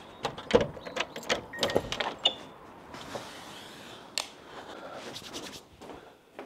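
Keys jangling and a door lock clicking as a glazed door is unlocked and swung open, with a brief high beep about two seconds in and more clicks and footsteps as someone steps in.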